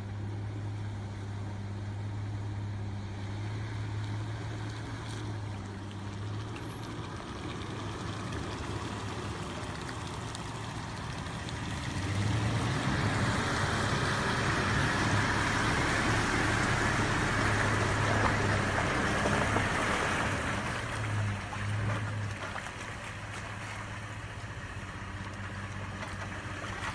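Toyota FJ Cruiser's 4.0-litre V6 running at low revs through a creek crossing. About twelve seconds in, a loud rush of splashing water builds as the vehicle wades through, lasting around eight seconds before the engine alone is heard again.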